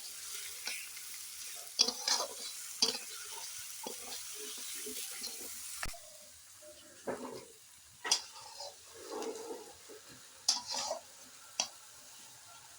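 Onions and garlic paste sizzling in hot oil in a kadai while a spatula stirs them, with several sharp scrapes and knocks of the spatula against the pan. The sizzle is steady at first and thins out about halfway through.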